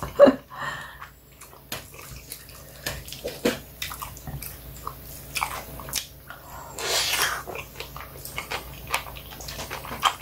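Close-up eating sounds: wet chewing and biting, with scattered small clicks of a spoon on a plate and a short noisy rush about seven seconds in.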